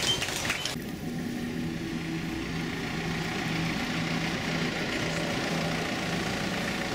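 A vehicle engine idling steadily, a low hum with an even pulse. The sound changes abruptly about a second in.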